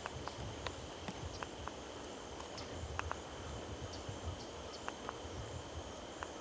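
Steady high insect trill, with scattered faint ticks and clicks over it.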